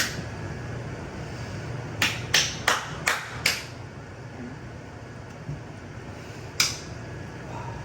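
Five sharp taps in quick succession, about a third of a second apart, then one more a few seconds later, over a low steady hum.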